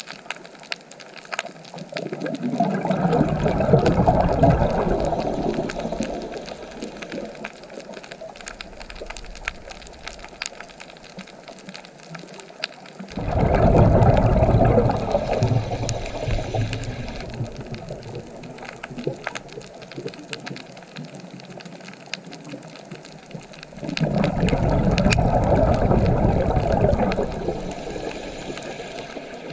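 Ocean waves surging in three times, each swell rising quickly to a rush and fading away over several seconds, with a softer steady hiss of water between them.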